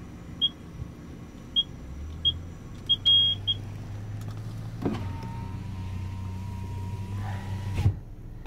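Car wash code keypad beeping on each key press: four short high beeps about a second apart, then a longer beep. About five seconds in, the Dodge Grand Caravan's power window motor whines steadily for about three seconds and stops with a thump, over the van's idling engine.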